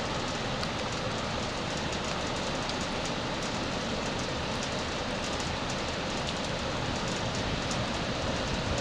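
Floodwater running steadily into a drain, an even, unbroken wash of water noise.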